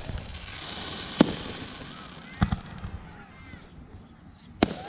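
Aerial firework shells bursting in sharp bangs: one about a second in, a quick pair near the middle and another near the end.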